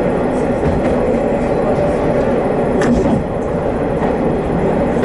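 Hi-Mo 330 diesel railcar running along the line: a steady engine drone mixed with wheel-on-rail noise, with one sharp click about three seconds in.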